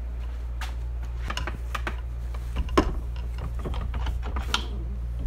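Scattered metal clicks and clunks as a lathe hollowing rig's bars and clamp are handled and set into a wall-mounted holder, the loudest knock about three seconds in, over a steady low hum.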